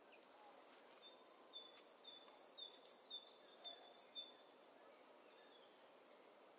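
Faint birdsong over a soft hiss: a bird repeats a high-then-lower two-note chirp about twice a second for some four seconds. After a pause, a single falling whistle comes near the end.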